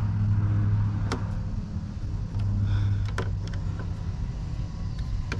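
A screwdriver tightening the terminal screws of circuit breakers, giving a few sharp, scattered clicks and a brief scrape of metal, over a steady low hum.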